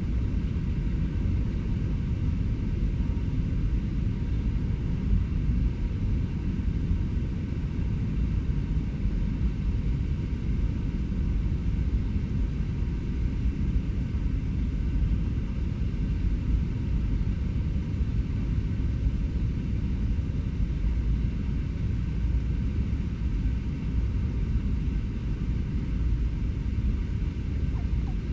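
Steady low rumble of distant urban traffic, an even din that neither builds nor fades, with faint steady hums above it.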